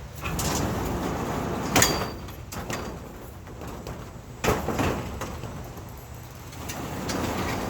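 Sliding barn door being unlatched and rolled open: a rumbling slide along its track, with two sharp metal clacks from the cam-action jamb latch and door, and more rolling near the end.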